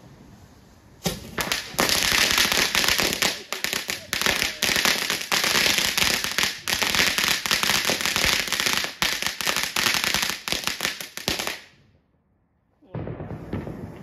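Ground firework fountain spraying sparks with a loud, dense crackle. It starts about a second in and cuts off abruptly near the end.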